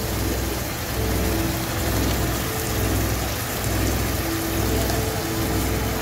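Tomato-based sauce sizzling and bubbling in a nonstick wok as it is stirred with a silicone spatula, a steady rain-like hiss. A low rumble comes and goes about once a second underneath.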